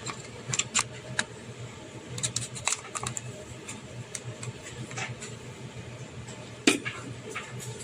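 Handling noise: irregular light clicks and taps of objects being picked up and set down, with one sharper knock about seven seconds in, over a steady low hum.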